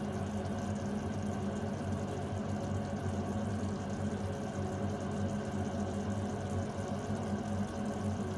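Tomato sauce with beef balls simmering in a frying pan on a gas burner, over a steady low hum.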